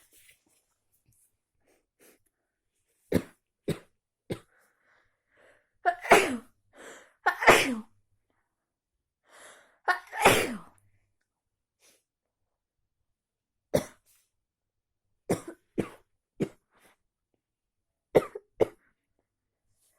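A person sneezing repeatedly from allergies and a cold. Three loud sneezes come about six, seven and a half and ten seconds in, each falling away in pitch. Shorter, quieter coughs come before and after them.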